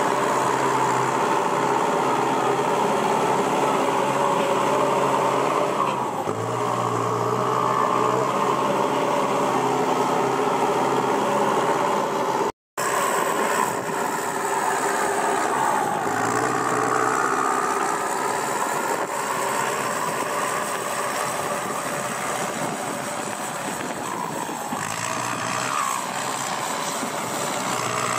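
Kubota M6240SUH tractor's turbocharged diesel engine running through a new aftermarket exhaust pipe, idling with its pitch rising and falling a few times as it is revved. The sound cuts out for an instant about halfway through.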